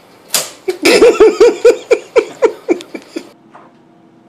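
A person laughing hard in a quick run of about ten 'ha' bursts that stops about three seconds in, after a short sharp sound just before it starts.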